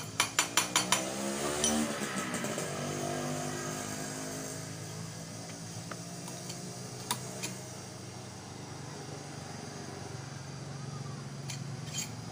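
A quick run of about six metallic clicks, then a motorcycle engine nearby rises briefly in pitch and settles into a steady idle, with an occasional tool click over it.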